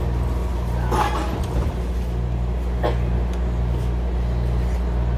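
Inside a MARTA CQ311 Hitachi metro railcar: the steady low hum of the car's equipment, with two short knocks about a second and three seconds in.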